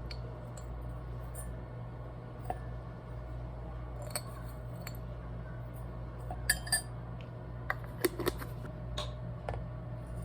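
Tableware being handled: a few light clinks and taps, scattered and irregular, the busiest stretch a little past the middle. A steady low hum runs underneath.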